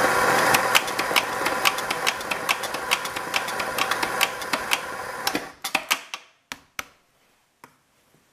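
Electric coffee burr grinder running, grinding a dose of espresso beans with many sharp crackles, then stopping about five and a half seconds in. A few light clicks and taps follow.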